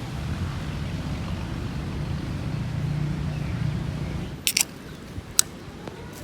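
Strong wind buffeting the microphone, a low rumble that drops away about four seconds in, followed by two sharp clicks.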